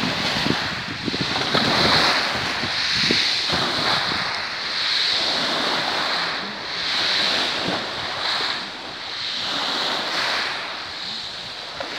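Small sea waves lapping and washing in the shallows, swelling and easing every couple of seconds, with wind buffeting the microphone.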